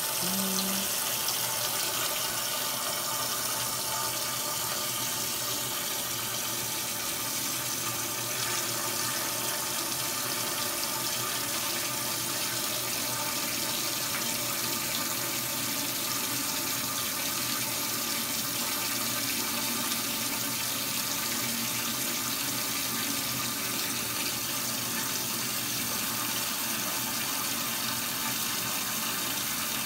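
Water spraying steadily from a shower-style hose nozzle into a large stainless steel brewing kettle, splashing onto the water already in the bottom as it fills.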